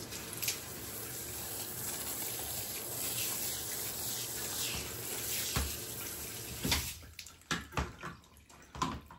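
Shower water spraying onto a tiled floor, a steady rush of running water that stops about seven seconds in, followed by a few scattered drips and splashes.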